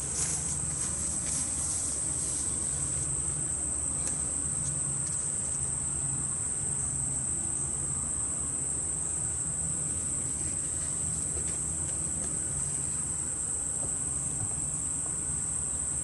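Steady high-pitched insect chorus of shrilling crickets in tall grass, unbroken throughout, over a low steady hum.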